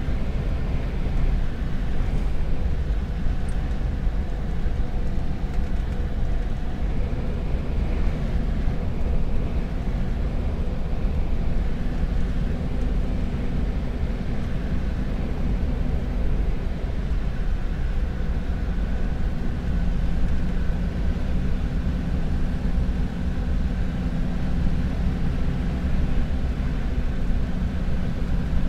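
Carbureted Ford's engine and road noise while driving at a steady speed, with a low, even drone that changes little.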